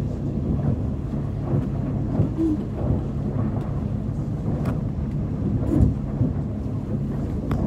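Motorboat running at speed: a steady engine hum under the rush of its wake and spray, with wind buffeting the microphone and a few sharp slaps of water against the hull.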